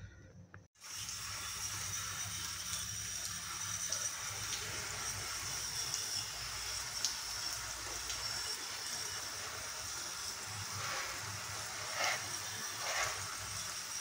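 Water jet from a spray gun hissing steadily as it washes the dirt-clogged indoor unit of a split air conditioner, starting about a second in. The jet splashes briefly louder twice near the end.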